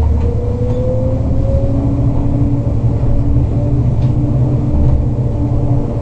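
Modern tram running along, heard from inside the car: a steady low rumble of the running gear on the rails, with a whine rising in pitch over the first two seconds and then a steadier tone.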